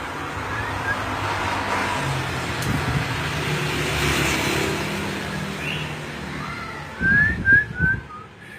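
A passing vehicle's road noise swells to about four seconds in and then fades. Near the end a common iora gives a quick run of four short whistled chirps, with a few low thumps alongside.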